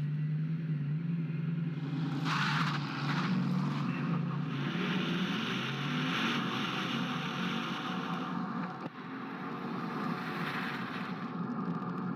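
Car driving at speed: a low steady hum with rushing road and wind noise that swells a couple of seconds in and eases off near the end.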